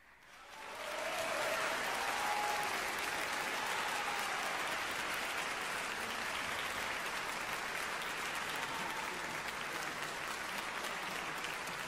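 Concert-hall audience applauding, the clapping swelling up within about a second of the music ending and then holding steady.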